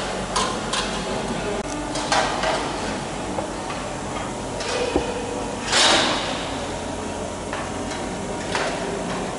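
Scattered knocks, clicks and scrapes of thin aluminium aircraft parts being handled and fitted to a wing spar, over a steady workshop hum; the loudest is a short scraping rush about six seconds in.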